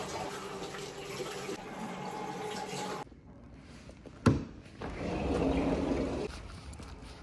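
Bathroom sink tap running, a steady splash of water that cuts off abruptly about three seconds in. A little later comes a single sharp click of a door latch, then the noise of a glass patio door being slid open for about a second and a half.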